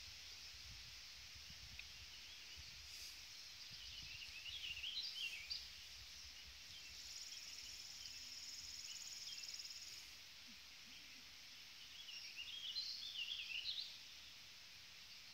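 Quiet outdoor ambience: a small bird sings two short bursts of quick warbling chirps, about four seconds in and again near the end. In between, a steady high, buzzy insect trill lasts about three seconds, over a constant faint hiss.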